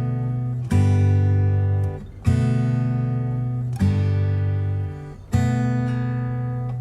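Background music: acoustic guitar strumming chords, a new strum about every second and a half.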